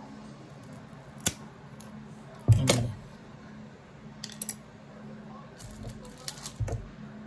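A bamboo cake dowel being cut: a sharp click about a second in, then a loud snap with a dull knock about two and a half seconds in as the stick is cut through, followed by a few lighter clicks and taps.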